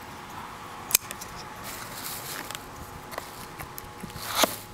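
A cardboard shipping box being handled and opened by hand: a sharp click about a second in, scattered light taps and rustles, and a louder scrape near the end.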